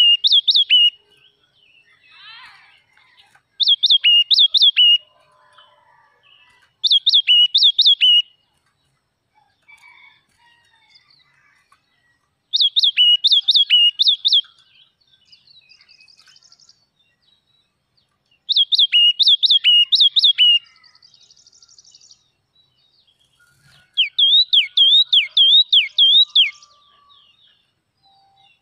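Crested songbird singing in short bouts of four or five sharp, quickly repeated whistled notes, a bout every few seconds, with a run of downward-slurred notes near the end.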